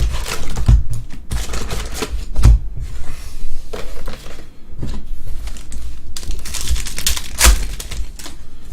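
A trading-card hobby box and its packs being opened and handled by hand: irregular rustling, crinkling and tearing of wrapping and cardboard, with a few sharp knocks.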